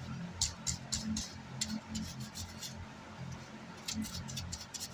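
Brush scrubbing a circuit board wet with 90% rubbing alcohol: clusters of short scratchy strokes, in the first second and again at about four seconds, over a low steady hum.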